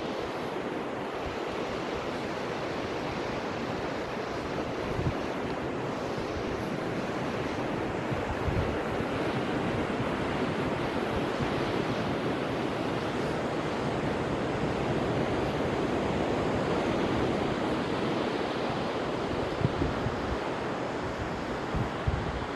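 Ocean surf washing steadily onto a beach, swelling a little in the middle, with wind gusting on the microphone.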